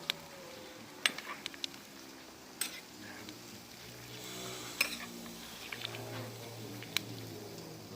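A utensil clinking against a cooking pot while soup is stirred, with a handful of sharp clinks spread irregularly, several close together about a second in.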